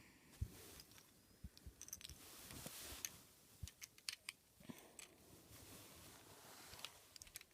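Faint, irregular clicks and knocks of loose plastic Rubik's Cube pieces being picked up and handled.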